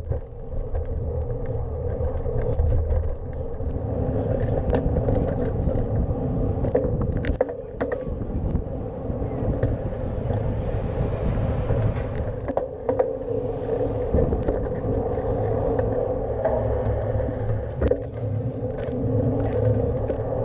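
Steady rumble of road and wind noise picked up by a camera on a moving bicycle in city traffic, with a few short knocks from bumps along the way.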